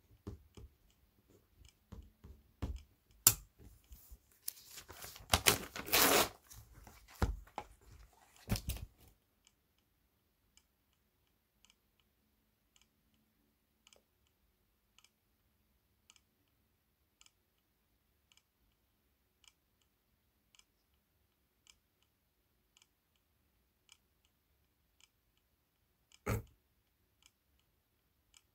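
Paper being handled: rustling and tearing for the first nine seconds, with a sharp click about three seconds in. Then a faint, regular tick about once a second, and one more brief rustle near the end.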